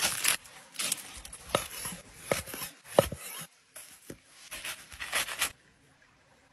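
Aluminium foil crinkling as a foil packet of cooked meat is pulled open, then a few sharp taps and the crackly rustle of a crusty sesame bun being cut open on a wooden board, with the last second near silent.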